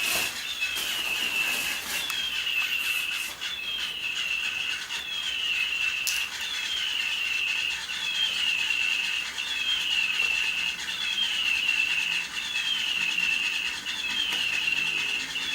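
Electronic toy bird chirping over and over at an even pace, a high falling chirp about every three-quarters of a second. A sharp click comes about six seconds in.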